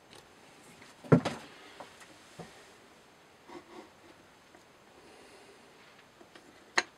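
Scattered handling knocks and clicks: a loud knock about a second in, a few fainter ticks, and a sharp click near the end, as the knife is moved under the microscope.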